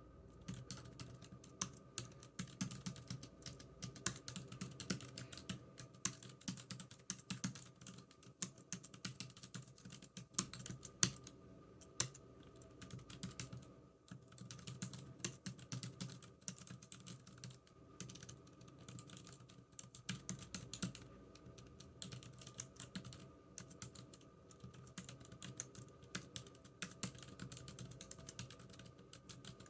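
Computer keyboard typing: quick, irregular key clicks in bursts with short pauses, over a faint steady low hum.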